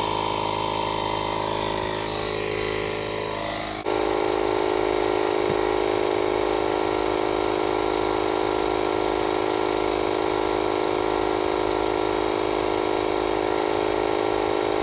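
Old 12-volt tire inflator pump running steadily with a whine while it pumps air into a tractor tire to seat the bead. About two seconds in its pitch sags, and just before four seconds in it jumps back up abruptly and runs on steady.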